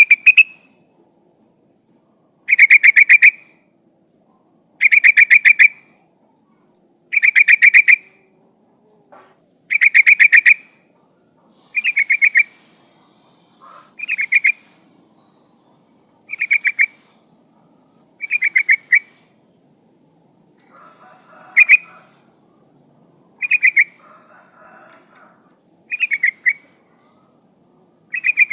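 Yellow-vented bulbul (trucukan) calling: a short burst of rapid, chattering notes, repeated about every two seconds, some thirteen times. The uploader presents it as a female calling for a male.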